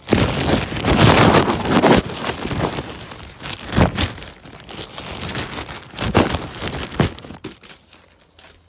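Plastic packaging crinkling and rustling as it is handled, in irregular loud bursts with sharp crackles, dying away near the end.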